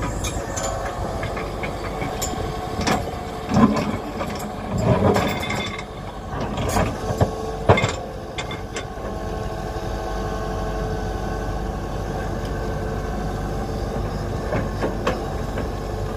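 Tata Hitachi Zaxis 120H excavator's diesel engine running steadily while the machine digs, with sharp knocks and scraping from the bucket biting into stony earth in the first half.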